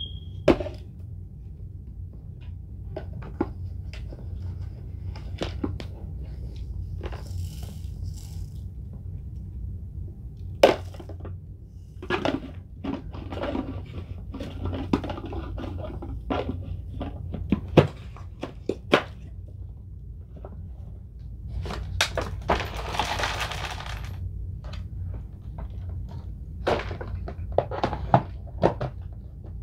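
Vacuum cleaner running with a steady low hum while bits of crunchy debris click, crackle and rattle irregularly as they are sucked up.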